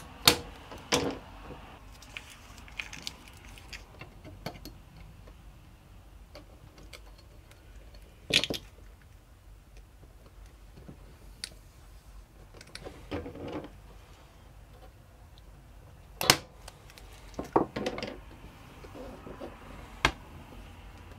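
Handling noise from taping metal magnetic knife-rack strips on a plastic cutting board: a handful of sharp clicks and taps as the strips and scissors are handled and set down, with soft rustling and rubbing between as the tape is pressed on.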